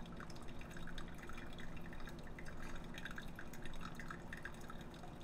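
Thin stream of hot water from a stainless steel kettle pouring onto wet coffee grounds in a paper filter cone: a soft, steady patter of small splashes and drips, over a faint steady hum. This is the main pour of a pour-over brew, after the bloom.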